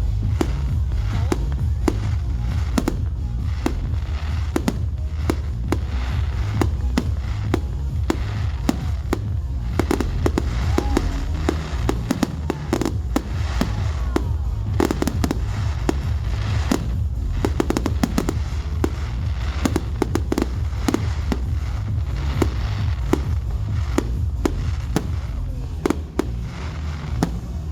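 Fireworks display: rapid, near-continuous bangs and crackles over a steady low rumble, easing slightly near the end.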